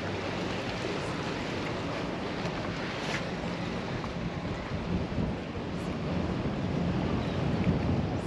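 Steady wind buffeting the microphone, mixed with the wash of ocean surf.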